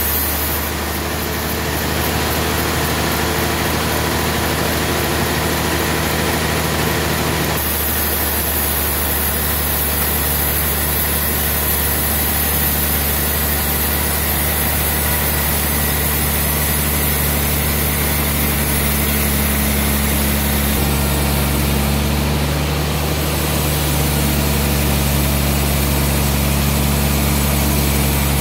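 Large band sawmill running steadily with a deep, even hum. Its tone shifts about seven seconds in and again about two-thirds of the way through.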